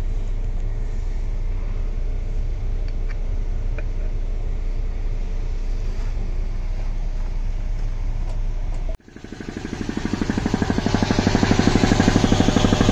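A steady low hum, then a sudden break about nine seconds in. After it a Champion air compressor, its piston pump driven by a 5 hp 230 V WEG electric motor, is running with a fast, even pulsing that grows louder over a couple of seconds.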